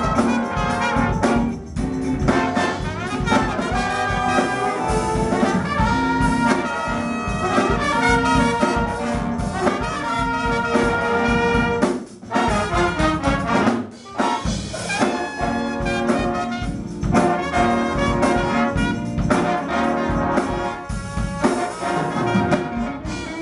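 A jazz big band playing a funk number: a saxophone section with trumpets and trombones, over drums and electric guitar, with a couple of short breaks about twelve and fourteen seconds in.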